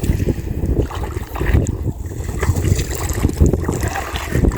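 Wind buffeting the microphone: a loud, gusty low rumble that rises and falls.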